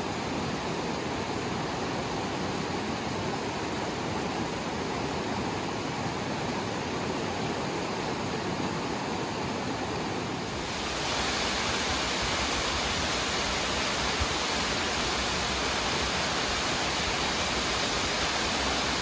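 Steady rush of a fast-flowing forest creek running white over rocks. About ten seconds in, it gives way to a louder, hissier, steady rush of falling water from a waterfall.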